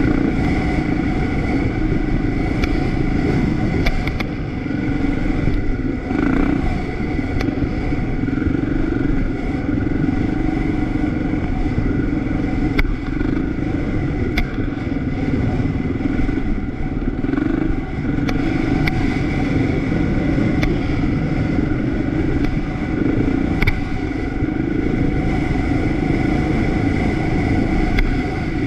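Engine of an off-road ride vehicle running at a steady pace, under a heavy low rumble. A few sharp clicks and rattles come through here and there.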